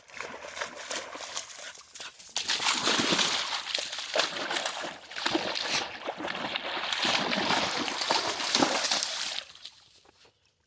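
A coonhound-mix dog splashing through water, louder from about two seconds in and stopping shortly before the end.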